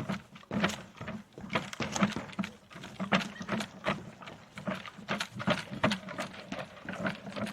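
Footsteps walking along a path, about two steps a second.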